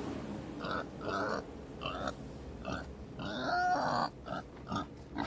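Pig grunting and oinking loudly in a run of short calls, with one longer squealing call about three seconds in.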